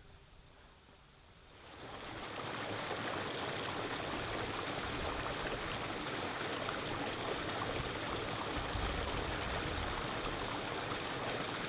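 Near silence, then about two seconds in a steady rush of running water, like a stream, fades in and holds evenly.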